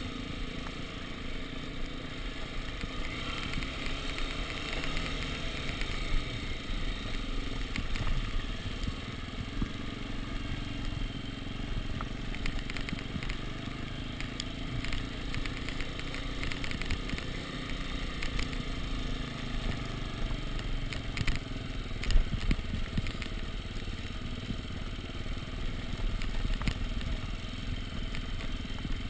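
Dirt bike engine running under the rider, with the bike rattling and knocking over a rough cobbled road. A sharper knock comes about 22 seconds in.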